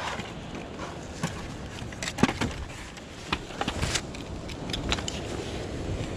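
A fat-tire electric bike being ridden and then stopped and handled: a steady rush of rolling and wind noise with scattered metallic clicks and knocks, the loudest a little past two seconds in.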